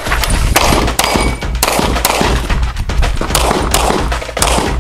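A rapid string of pistol shots, about a dozen, irregularly spaced, with bullets clanging on steel plate targets.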